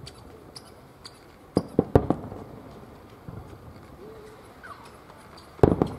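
Aerial firework shells bursting: three bangs close together about one and a half to two seconds in, and a louder bang near the end.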